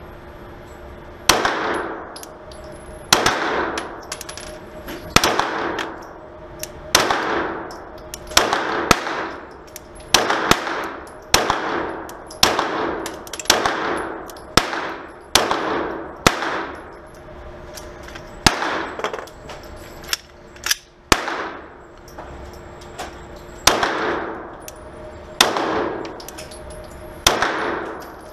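Glock 17 9mm pistol firing about twenty single shots at a slow, steady pace, one every second or two. Each sharp crack is followed by a ringing tail of reverberation from the indoor range.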